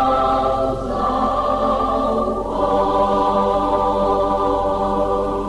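Mixed church choir singing the last phrase of a Portuguese hymn in four-part harmony, moving through two chord changes and then holding a long final chord. A steady low mains hum from the old cassette recording runs underneath.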